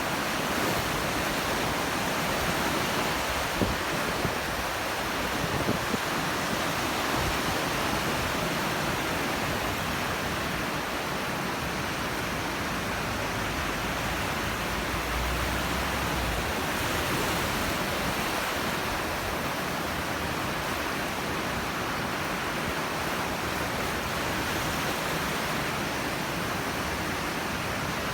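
Sea surf washing steadily onto the shore, a continuous rushing hiss of breaking waves. There are a few brief sharp clicks about four to six seconds in.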